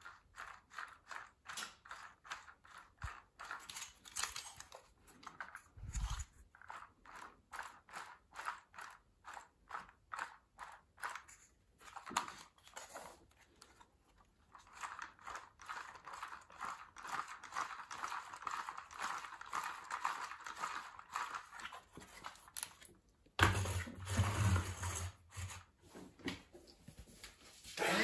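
Lego Technic rotary valve piston engine turned over by hand: plastic gears, pistons and valve parts clicking and rattling, roughly two clicks a second at first and faster, denser ticking later. A louder knock and rustling of handling come near the end.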